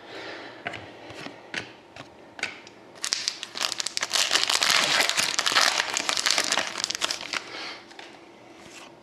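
A trading-card pack's wrapper crinkling loudly for about four seconds, starting about three seconds in, as it is torn open and handled. A few light clicks of cards being handled come before it.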